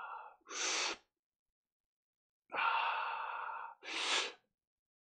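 A man taking deep, forceful breaths through his mouth as a breathing exercise. There are two rounds: each is a breath of about a second followed straight away by a short, sharp hiss, with a pause of about a second and a half between the rounds.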